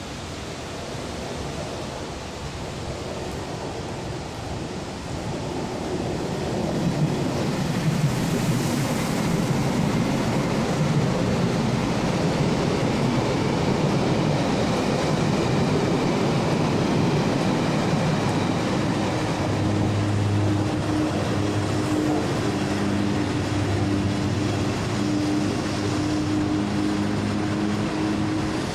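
Electric express train passing through a station, with steady wheel-on-rail rumble that grows louder about six seconds in. Later an orange electric locomotive hauling freight boxcars passes, adding a steady low hum.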